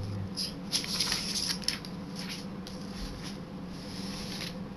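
Handling noise from a laptop and the recording device being touched at close range: irregular rustling, rubbing and light clicks, busiest in the first two seconds, over a steady low hum.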